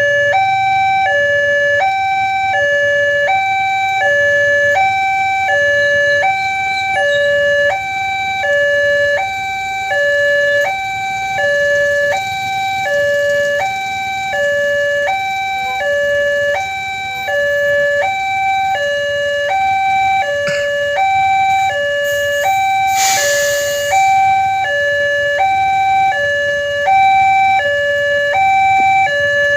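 Electronic railway level-crossing warning alarm sounding a steady two-tone high-low pattern, each tone held a little over half a second, warning that a train is approaching. A brief hiss cuts in about 23 seconds in.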